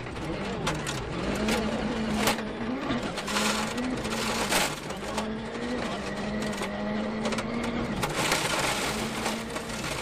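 Ford Fiesta RS WRC rally car's turbocharged engine running hard at high revs, its note held steady with brief dips at gear changes. Sharp knocks from the car's body and underside break in every second or so.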